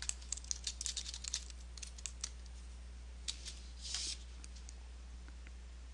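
Faint, quick clicks of typing on a computer keyboard for about two seconds, then a few scattered key clicks and a short soft hiss.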